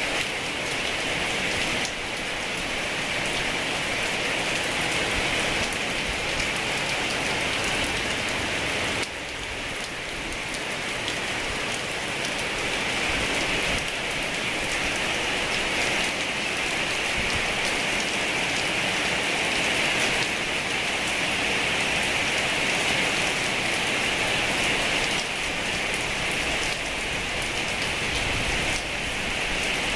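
Heavy rain pouring steadily: a dense, even hiss. It dips slightly in loudness about nine seconds in and a few other times.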